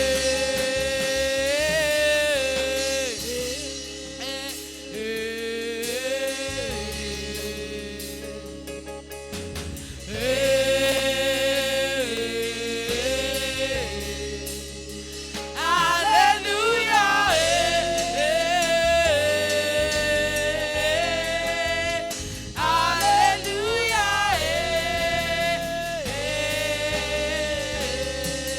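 Gospel choir singing with a band: long held notes that waver and slide over a bass line that steps between notes.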